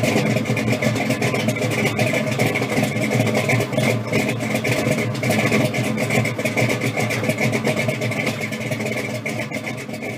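A loud V8 engine running, full of rapid, uneven firing pulses; it fades out near the end.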